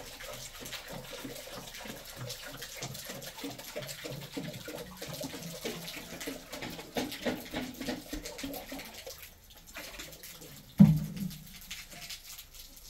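Water splashing, with one loud knock near the end.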